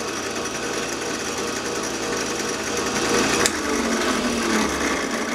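Drill press boring a 3/8-inch hole into an oak block, played back sped up, giving a fast, continuous busy whirr and rasp. A sharp click comes about three and a half seconds in.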